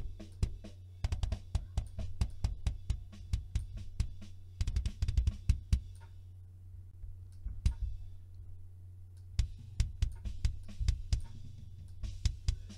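Metal kick drum's inside-mic track played back: fast, dense double-kick strokes with a deep low end, with snare and cymbals also heard, most likely as bleed into the mic. The strokes thin out for a few seconds in the middle and then come back dense.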